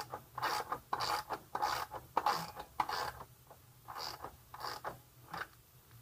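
Ratchet wrench clicking in short strokes, about two a second, as it turns the rear axle nut of a Honda CB300R.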